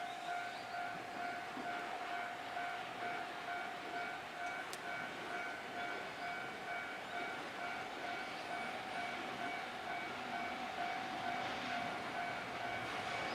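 Japanese level-crossing warning bell ringing in an even, repeating rhythm as a freight train approaches, with the noise of the train on the rails building toward the end.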